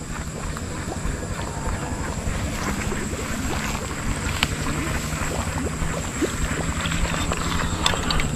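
Small boat motor running steadily, a low even drone, with a constant thin high whine above it.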